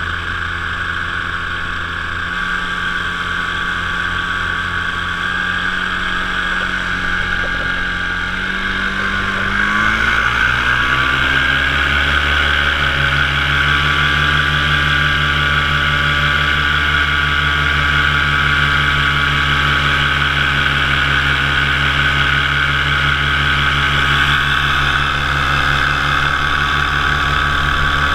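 Top 80 single-cylinder two-stroke paramotor engine and propeller running in flight, heard close from the frame. About a third of the way in the throttle opens: the engine note rises in pitch and gets louder, then holds steady at the higher speed.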